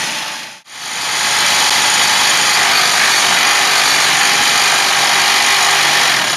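Reciprocating saw cutting through a steel wheel stud, running hard and steady. It cuts out for an instant under a second in, then resumes. The blade is worn almost toothless.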